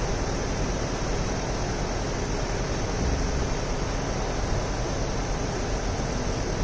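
City street ambience: a steady, even rushing noise with no distinct events.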